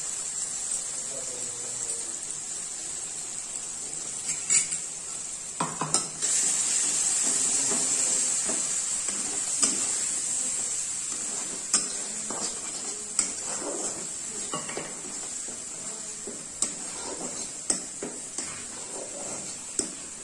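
Mustard paste sizzling in hot oil in a black kadai, with a steady high hiss. A steel spatula scrapes and clicks against the pan now and then as the paste is stirred and turned.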